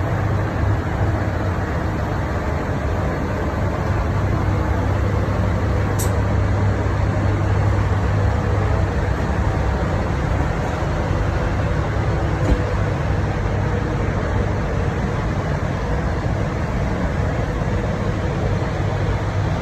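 Steady machine noise with a constant low hum, broken by a sharp click about six seconds in and a fainter one near the end.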